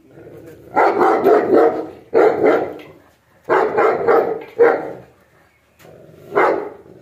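Dog barking in five loud bursts, each a run of quick barks, the last near the end.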